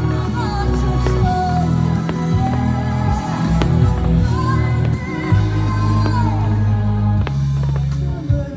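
Music with a sung melody over sustained bass notes, with a few sharp percussive hits.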